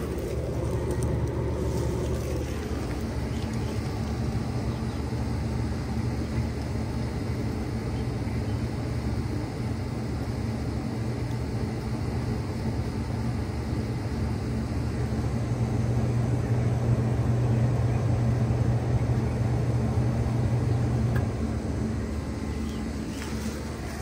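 1996 Bard three-ton wall-mount heat pump running in cooling mode: a steady low compressor hum under the rush of the outdoor fan. About 21 seconds in, the compressor hum cuts off abruptly and the fan noise carries on more quietly as the unit shuts down.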